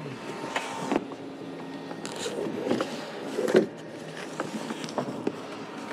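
Handling of a nylon mooring rope on a fibreglass boat: the line is pulled out of a deck locker and run to a cleat, making scattered rustles, knocks and clicks, with a louder scrape about three and a half seconds in. A low steady hum runs underneath.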